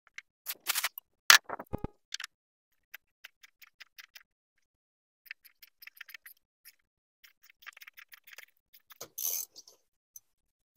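Socket ratchet and metal hand tools on a Detroit DD15's fuel filter caps as they are loosened: a few sharp metal clinks at first, then runs of light, quick clicks, and a short scraping noise about nine seconds in.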